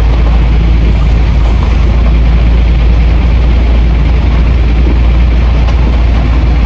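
Hino 500 truck's diesel engine and tyre noise, a steady low rumble heard from inside the cab while driving, with heavy rain hissing on the windshield and roof.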